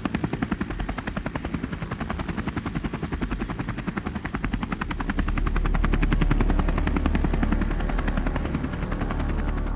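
Helicopter rotor chopping at a fast, even beat, with a low engine drone that grows louder about halfway through.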